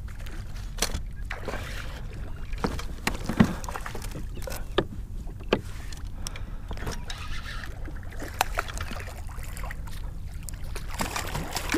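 Scattered light knocks and clicks of fishing gear handled aboard a plastic fishing kayak, over a low steady rumble.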